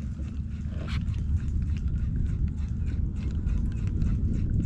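Wind rumbling on the microphone, with a rapid, irregular patter of small waves clicking and lapping against a kayak hull.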